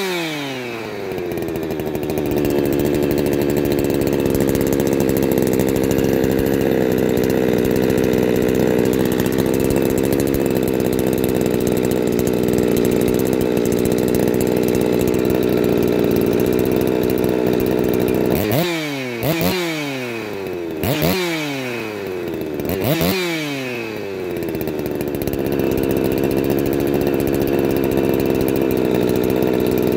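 Ported Husqvarna 359 two-stroke chainsaw with a 3/4-inch tube muffler mod, running steadily at idle. It is blipped in a quick run of rev-ups, each falling back to idle, just as it starts and again about two-thirds of the way through.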